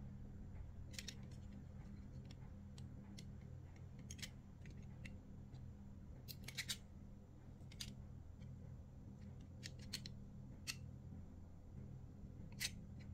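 A snap-off utility knife blade cuts and scrapes a small plastic pen part, giving short, sharp clicks and scrapes every second or so, with a low steady hum underneath.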